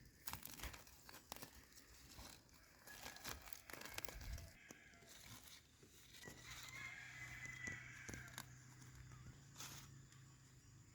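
Faint rustling and crackling with scattered clicks, as of something being handled or torn, and a faint wavering high call for about a second and a half past the middle.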